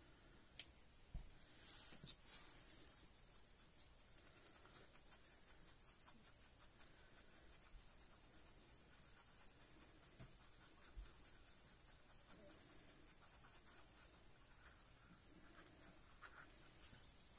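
Faint, rapid scraping of a thin stick stirring thick UV resin around the inside of a small paper cup, with a couple of light clicks about a second in.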